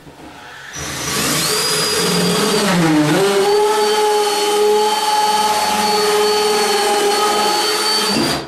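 Cordless drill spinning an internal pipe cutter inside a drain pipe, cutting the pipe down below the subfloor surface. The motor starts about a second in, its pitch dips briefly about three seconds in as the cutter bites, then it runs steady and stops just before the end.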